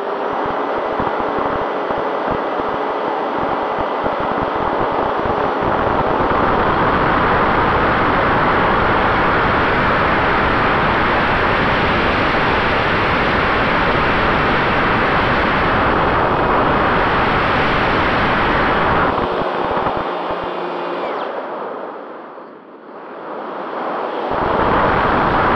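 Airflow rushing over the onboard camera's microphone on an HD-Wing RC flying wing in flight, with the faint steady whine of its electric motor. About 20 seconds in the rush fades to a brief lull, then builds back up.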